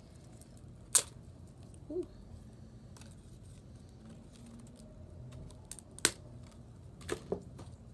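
Cork bark being handled out of a plastic bag and against a clear plastic tub: a few sharp clicks and knocks, one about a second in, a louder one about six seconds in and two close together near the end, with a short squeak about two seconds in.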